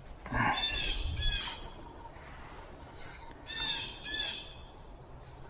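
Harsh, squawking bird calls from a woodland bird: two near the start, then three more in quick succession about three to four seconds in.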